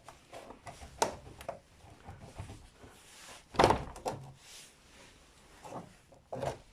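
A few scattered knocks and clunks of car parts and tools being handled, the loudest about three and a half seconds in.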